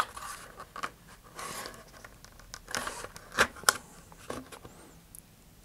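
Scraping and rustling with a few sharp clicks: a model rocket's paper engine mount tube being twisted and pushed into the rocket's body tube by hand.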